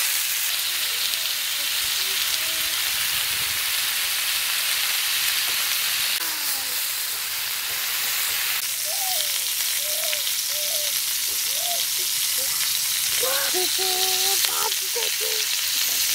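Chicken kebab skewers sizzling steadily in a little hot oil on a flat iron tawa, as they are laid on the griddle one by one.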